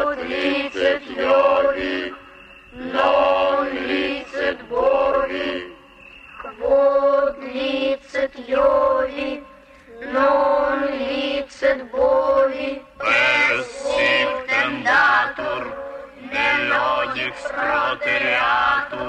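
A chorus of cartoon voices chanting together in unison, in short phrases on a fairly steady pitch with brief breaks between them.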